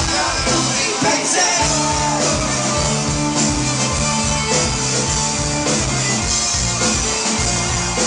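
Live folk-punk band playing a rock song with singing, heard from the crowd; the bass and drums drop out briefly about a second in, then come back in.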